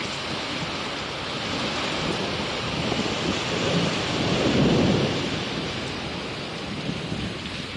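Steady rain with a roll of thunder that builds to a peak about halfway through and then dies away.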